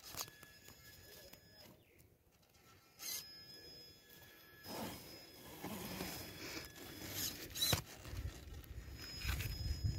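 Traxxas TRX4 Defender RC crawler's electric drivetrain whining faintly as it crawls over dirt, with a few sharp knocks and scraping of the tyres and chassis on the ground. A low rumble builds near the end.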